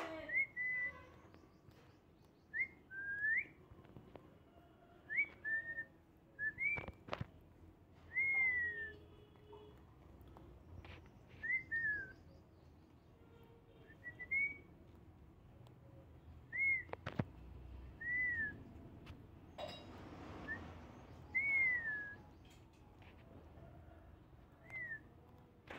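Short, clear whistled notes, about a dozen spread out, each a brief rising-then-falling or falling glide, alongside a parakeet pecking at a steel food bowl. A couple of sharp clicks, about 7 and 17 seconds in, fit its beak striking the steel bowl.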